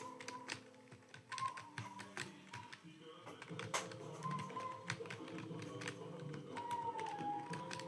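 Computer keyboard being typed on: irregular key clicks at an uneven typing pace, over faint background music.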